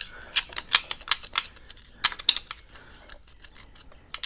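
A rapid, irregular series of sharp clicks and taps, busiest in the first half and thinning out after about two and a half seconds.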